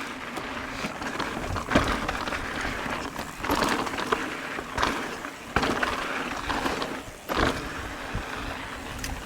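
Mountain bike rolling fast over a rough dirt trail: knobby tyres crunching and hissing on the ground, with the bike clattering and rattling over bumps in uneven surges.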